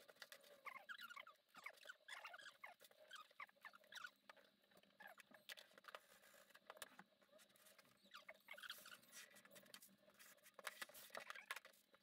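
A kitten crunching dry kibble from a ceramic bowl: faint crackly crunching and small clicks. It eases off about halfway, then a few more faint clicks and patters come near the end.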